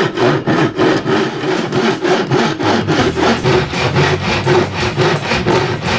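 Hand saw cutting through a piece of hard, stained wood in quick, even back-and-forth strokes; the speaker guesses the wood is oak and says it takes a while to cut.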